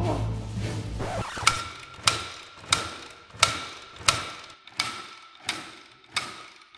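Freshly rebuilt Suzuki RM two-stroke motocross engine being kickstarted: about eight kicks, roughly three every two seconds, each a sharp clack with a short ring as the engine turns over. The engine does not fire. Music plays under the first second.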